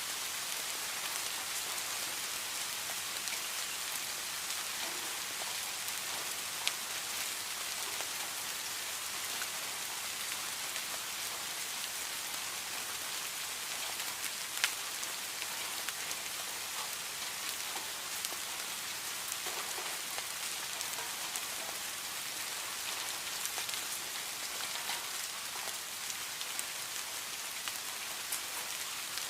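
Heavy rain falling steadily, an even hiss, with now and then a single louder drop striking close by, the sharpest about halfway through.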